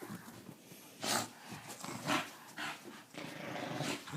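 Two dogs at tug of war over a sock toy, making a few short, sharp breathy sounds about once a second.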